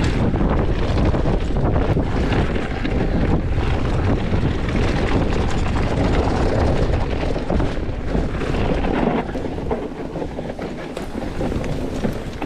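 Wind buffeting the microphone over the crunch and rattle of a mountain bike descending fast on a rocky dirt trail, with tyres on dirt and loose stones and the bike clattering over bumps. It gets somewhat quieter about nine seconds in.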